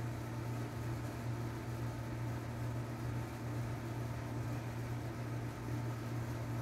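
Steady low mechanical hum with a constant pitch and no knocks or changes.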